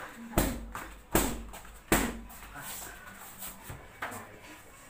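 Strikes smacking against a trainer's padded striking pad: three hard hits in the first two seconds, then lighter knocks.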